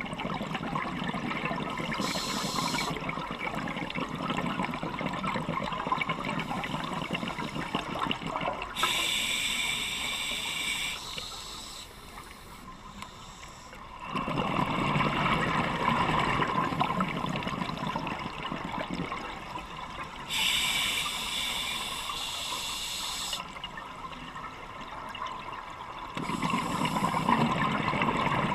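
Moving water, rushing and bubbling, broken by a few stretches of sharper hiss lasting one to three seconds each.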